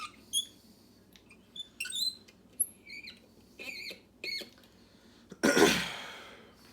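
Short, high squeaks and clicks as a lock cylinder is set and clamped in a small bench vise, metal on metal. About five and a half seconds in comes a loud rasping noise lasting about a second and fading away.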